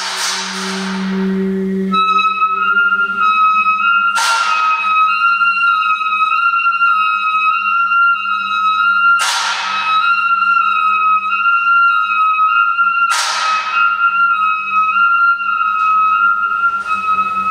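A small flute holding one long high note that wavers slightly between two close pitches, starting about two seconds in, over a low hum. Three short hissing sweeps cut in, each falling from very high to lower.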